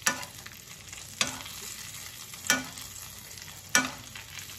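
Wild-game burger patties sizzling in hot fat in a cast-iron skillet while being basted with a metal spoon. The spoon clinks sharply against the pan four times, about once every second and a quarter.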